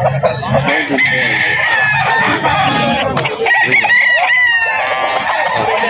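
Gamecocks crowing, the loudest crow about three and a half seconds in, over a murmur of voices.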